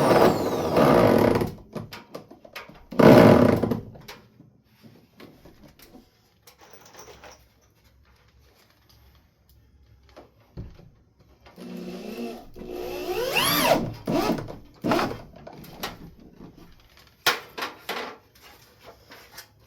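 Power drill driving screws into wood in short bursts, including one rising motor whine about two-thirds of the way through, with knocks and handling clicks in between.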